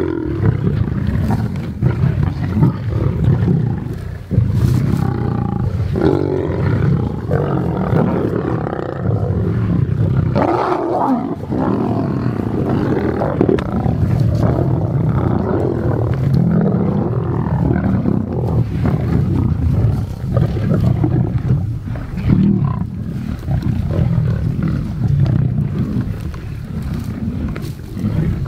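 Lions growling and snarling at a kill as they feed, a deep, loud and nearly unbroken rumble with no pauses.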